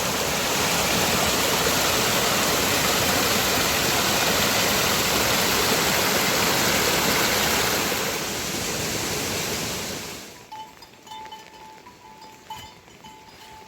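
A loud, steady rush of running water that cuts off suddenly about ten seconds in, leaving a much quieter background with a faint thin whistle-like tone and a few soft clicks.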